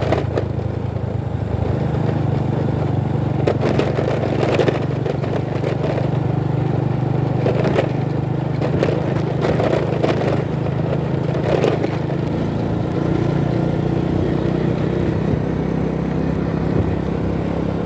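Motorcycle engine running at a steady speed while riding, with wind and road noise and a few short knocks or rattles.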